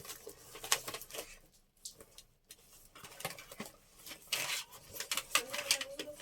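Irregular rustling, scraping and soft knocking of paper and craft supplies being rummaged through by hand.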